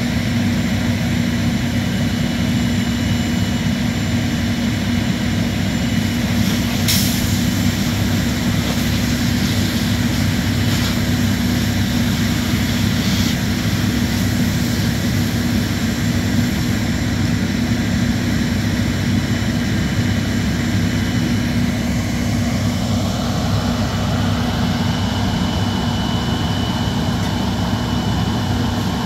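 Fire engine's diesel engine running steadily at one constant pitch, a loud unbroken drone. A couple of brief knocks sound about 7 and 13 seconds in.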